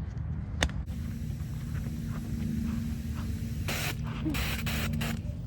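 Water running through a garden hose and hissing out of a leak at the newly fitted hose end, with a few louder bursts of spray near the end.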